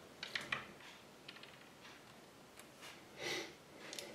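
Faint clicks and taps of small plastic parts of a Kinder Surprise spinning-top toy being handled and fitted together, with a cluster of sharp clicks about half a second in and a brief soft hiss about three seconds in.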